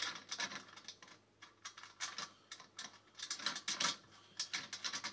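Irregular small clicks and taps of metal hardware being handled: bolts, nuts and the metal base of a patio heater knocking together as the wheels are fitted. The clicks come in quick clusters with short pauses, a little denser and louder past the middle.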